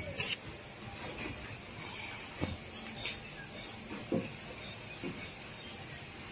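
A few scattered light knocks and clicks as hands handle a metal bar clamp and wooden planks on the workbench, over a faint steady background hum.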